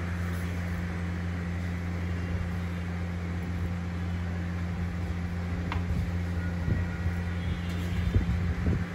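A steady low mechanical hum, like a motor running in the room, with a few faint knocks and a small click in the second half.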